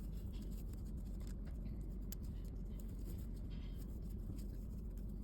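Crochet hook working chunky t-shirt yarn: faint scratching and light ticks of the hook and yarn, over a steady low background hum.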